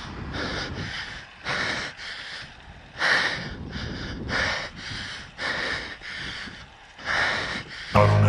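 A mountain-biker breathing hard into the microphone: quick, hissy breaths, about one to two a second, as he rides. Music comes in right at the end.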